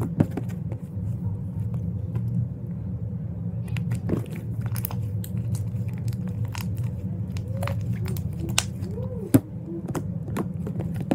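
Homemade slime being kneaded, folded and pulled by hand on a metal tray: irregular wet clicks and pops, with a sharper pop about nine seconds in, over a steady low background hum.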